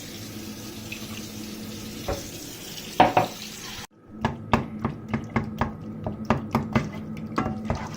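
A utensil stirring food in a pan, knocking and scraping against it about three times a second over a steady low hum, after a sudden break about four seconds in; before the break, a steady hiss.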